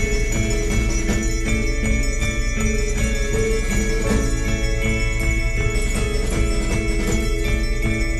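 Background music with bell-like tones over a steady beat.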